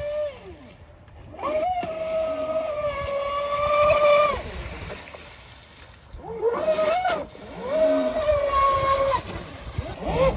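Traxxas Spartan SR's 6S brushless motor whining in bursts under throttle. Each burst rises sharply in pitch, holds for a second or a few, then falls off. There are several bursts, over the rush of water spray.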